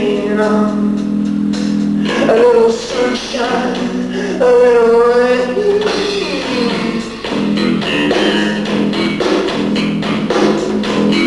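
Live rock band playing: guitars, bass guitar and drums, with a melodic line that wavers in pitch over the top.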